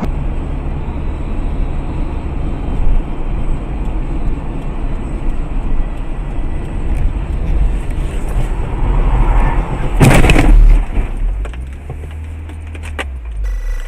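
Steady road and engine rumble heard from inside a moving car through a dashcam, broken about ten seconds in by a loud impact bang lasting under a second, followed by a few sharp clicks as the noise drops away.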